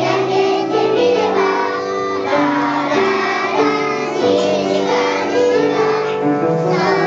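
Young children singing a song together over instrumental accompaniment, which holds steady sustained notes beneath the voices.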